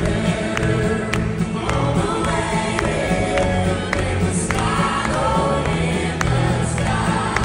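A live country band plays with several singers singing together over a steady drum beat, heard from the audience in a large hall.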